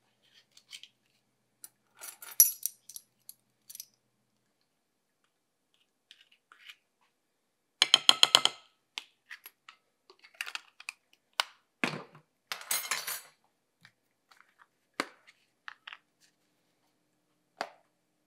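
Small kitchen handling noises: a small cardboard box of baking soda being opened and a measuring spoon scooping and tapping, then a canister of baking powder being poured from. Scattered clicks and scrapes, with louder rasping bursts about eight and twelve seconds in.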